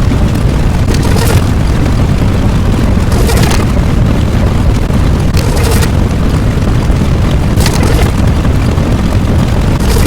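Explosion sound effects: a continuous deep rumble with a fresh blast about every two seconds.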